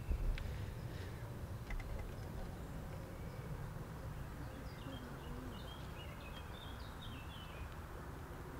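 Quiet outdoor ambience with a low steady rumble, a brief thump right at the start, and a small bird twittering in short, quick chirps for a few seconds about halfway through.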